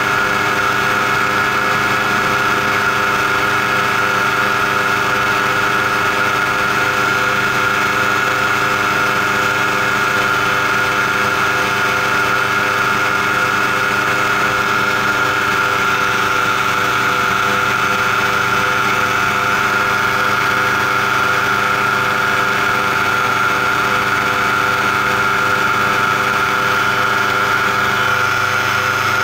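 Paramotor engine and propeller running steadily in cruise flight, a loud, even drone that holds one pitch with no change in throttle.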